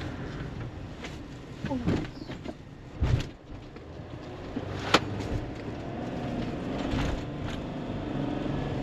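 Mercedes Sprinter 2500 van driving slowly, heard from inside the cab: steady engine and road rumble, with a short low thump about three seconds in and a sharp knock about five seconds in.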